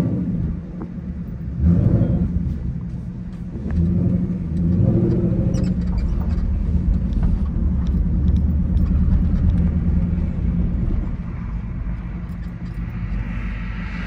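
Ford Mustang 5.0 V8 with a Corsa performance exhaust, heard from inside the cabin, pulling hard through the gears. The engine note surges at the start, again about two seconds in and about four seconds in, holds a steady drone, then eases off about eleven seconds in.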